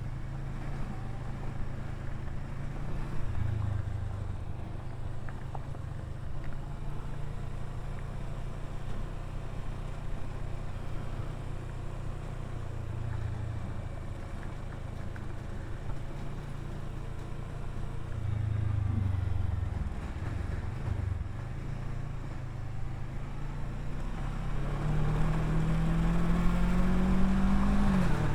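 Kawasaki Versys 650 parallel-twin engine running at low, steady revs while riding, then revving up with a rising pitch over the last few seconds and dropping briefly just before the end.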